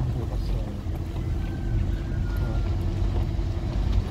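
Car in motion heard from inside the cabin: a steady low rumble of engine and road noise.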